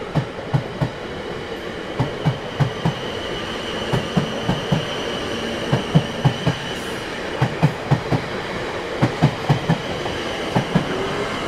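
Steady rumbling noise with a clickety-clack rhythm: low thumps in quick groups of four, a group about every two seconds, over a faint high steady tone.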